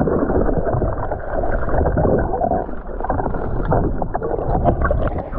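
Water sloshing and splashing around a person swimming through a pool, with a few sharper splashes near the end.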